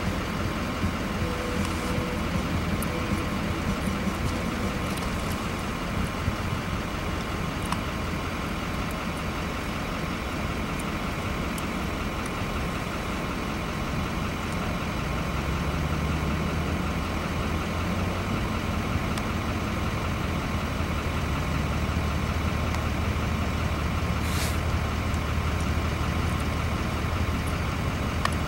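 Weatherly 620B crop-duster's engine and propeller running steadily through landing rollout and taxi. The low rumble grows louder about halfway through as the plane comes closer.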